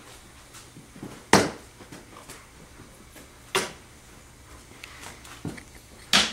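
Thumps and knocks from a cat pouncing on a feather wand toy: three loud sharp hits about two seconds apart, with lighter taps and rustles between.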